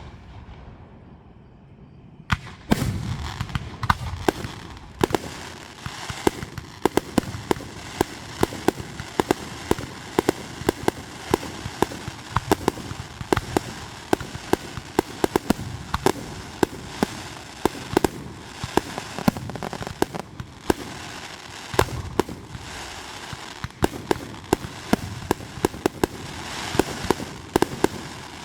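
Fireworks going off: after a brief lull, a long, dense run of rapid sharp pops and crackles sets in, with a few deeper booms among them.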